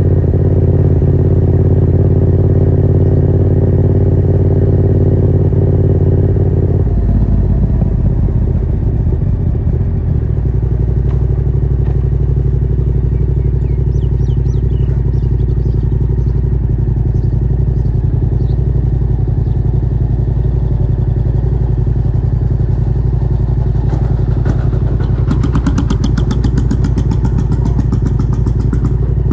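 Yamaha MT-07's parallel-twin engine running through a Yoshimura R77 exhaust with no dB killer, heard from on board while riding. The engine note shifts about seven seconds in and again a few seconds later, then holds steady. A fast rattle joins near the end.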